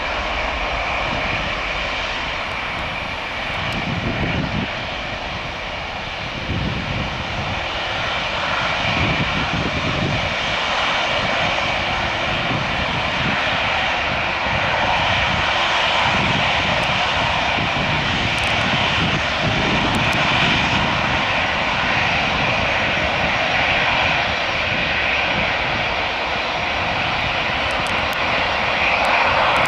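Four-engined jet airliner's engines at takeoff thrust: a steady, dense jet noise that grows louder as the aircraft rolls down the runway, lifts off and climbs away.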